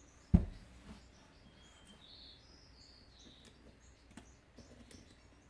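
A single low thump about a third of a second in, then faint, scattered high chirps of small birds in the background.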